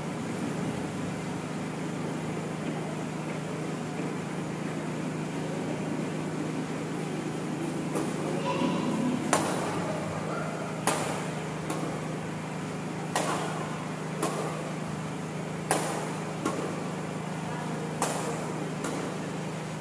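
Badminton rackets striking a shuttlecock in a rally: sharp hits about a second apart, starting about eight seconds in, over a steady low hum.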